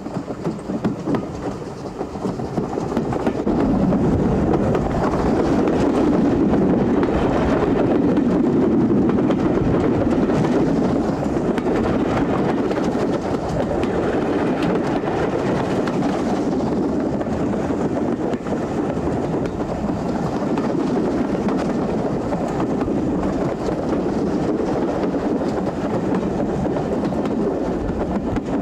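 A train running by on the rails, its rumble building over the first few seconds and then holding steady.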